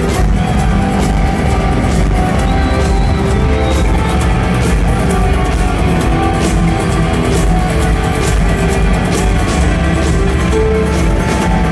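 Rock band playing live with guitars, bass and drums, in a passage without vocals.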